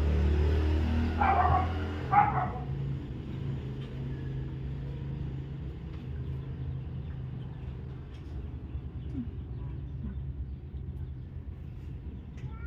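A dog barking twice, about a second apart, over a low steady hum.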